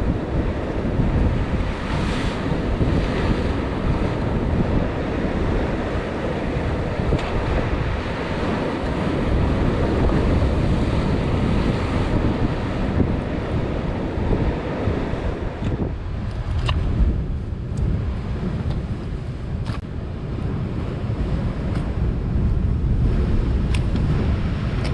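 Wind buffeting the microphone over the wash of sea waves. The wind eases about two-thirds of the way through, leaving the surf with a few sharp clicks.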